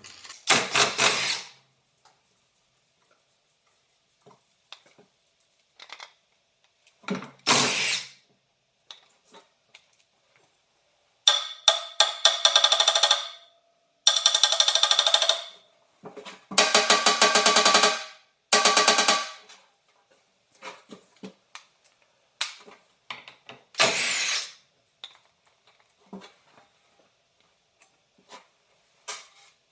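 A power driver backing out seat-bracket bolts in short bursts of one to two seconds, about seven of them with pauses between, some bursts coming as a fast even rattle.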